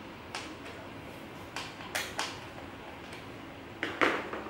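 Hands handling a PC case wrapped in crinkly protective plastic film: a string of short clicks and crackles, the loudest a brief rustle about four seconds in.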